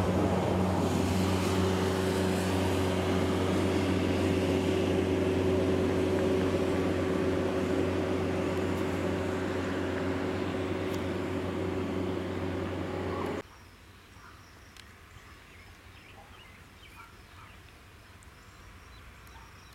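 Steady, even mechanical drone with a held low hum that cuts off suddenly about two-thirds of the way in. A quiet rural background follows, with insects chirping faintly.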